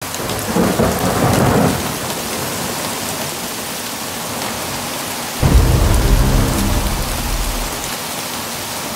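Heavy rain falling steadily, with low rumbles of thunder: a weaker roll about a second in, and a louder one that starts suddenly past the middle and rolls on for about two seconds.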